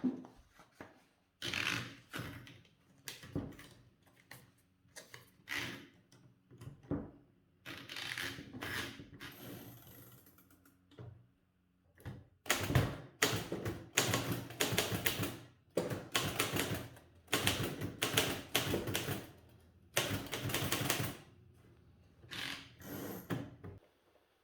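A typewriter being typed on: its typebars strike the platen in quick runs of keystrokes, a second or two at a time, with short pauses between the runs.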